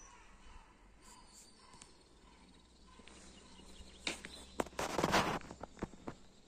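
Faint birds chirping in the background. About four seconds in come a run of sharp clicks and a louder rustling scrape, the loudest sound here.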